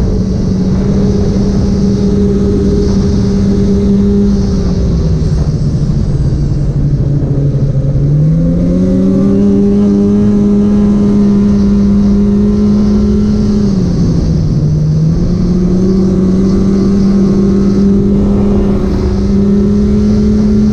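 Polaris Patriot 850 two-stroke snowmobile engine running at steady trail speed, dropping in pitch twice as the throttle eases and climbing back each time, over a steady hiss.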